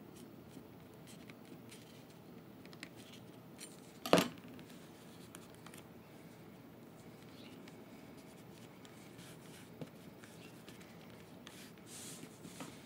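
Faint scraping and small clicks of a metal spatula worked over felt on a cutting mat, with one sharp knock about four seconds in as the tool is set down. Near the end, hands rubbing and smoothing the felt.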